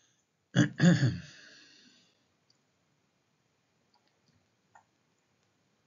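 A man's brief wordless vocal sound, breathy and pitched, about half a second in. It is followed by near quiet, with a faint click near the end.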